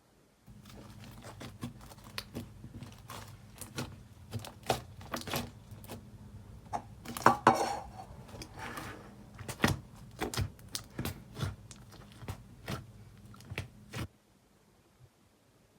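Slime being squished, folded and stretched by hand, making many sharp pops and clicks, with a denser crackling stretch about halfway through. The sounds stop suddenly near the end.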